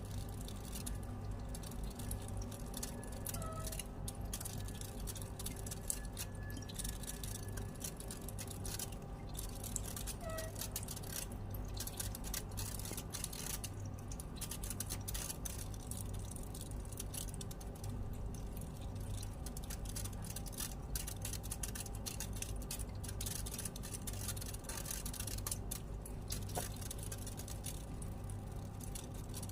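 Small electric pump humming steadily with water trickling, as from a pet drinking fountain.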